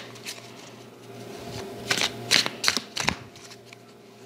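A deck of cards being shuffled by hand: soft rustling, then a quick run of about half a dozen crisp card flicks about two seconds in.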